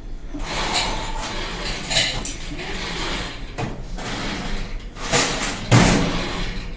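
Metal cutlery clinking and knocking as spoons, knives and forks are sorted into place: a few sharp knocks spread out, the heaviest one near the end.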